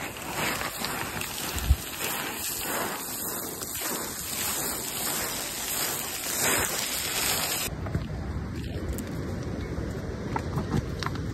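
Boots running and sliding down loose scree: a continuous crunching and rattling of shifting gravel and stones, with a sharp knock about two seconds in.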